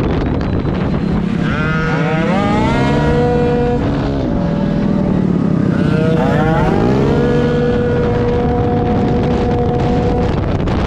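Racing scooter engine accelerating hard: its pitch climbs about a second and a half in, holds at a high steady note, drops, then climbs and holds again about five and a half seconds in.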